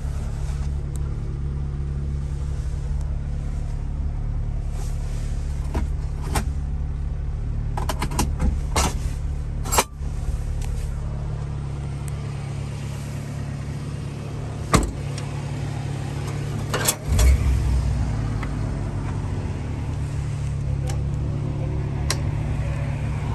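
Subaru Sambar truck's small 660 cc four-cylinder engine idling steadily, with scattered clicks and knocks from the cab's seat, latches and trim being handled, the loudest a thump about 17 seconds in.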